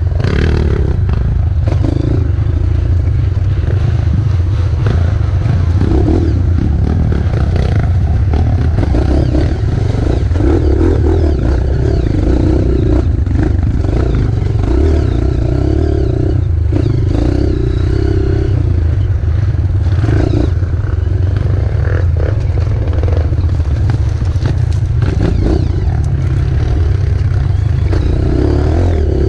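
Trail motorcycle engine running steadily while riding, its pitch rising and falling in stretches, with occasional knocks.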